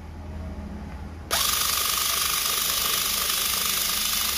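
FISCH 3.6 V cordless screwdriver running in reverse, backing a screw out of a laptop's bottom casing: its small motor and gearbox start about a second in with a sudden, steady high whir.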